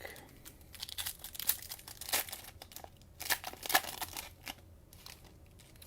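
Cellophane wrapper of a trading-card cello pack being torn open and crinkled, a run of irregular sharp crackles.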